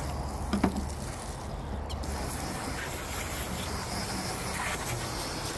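Running water splashing over a raw mahi-mahi fillet as its skin side is rinsed, a steady hiss that grows stronger about two seconds in. A short knock about half a second in.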